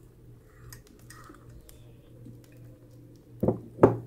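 Two short, loud puffs drawn on a briar tobacco pipe near the end, over a low steady hum with faint small clicks.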